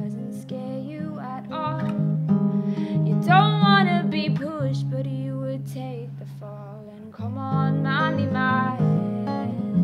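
Solo acoustic guitar, capoed, strummed and picked, with a woman singing over it in pitch-bending phrases. The playing thins out about seven seconds in, then comes back fuller.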